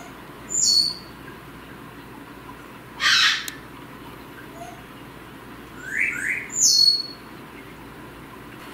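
Goffin's cockatoo calling: a high falling whistle, a harsh screech about three seconds in, then two short rising chirps and another high falling whistle near the end.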